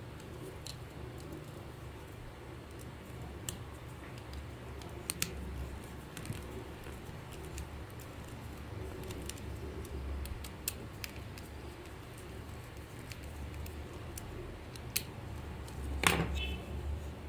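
Light, scattered clicks and taps of small hand tools and plastic toy parts being handled, over a low steady hum. A louder clatter comes near the end.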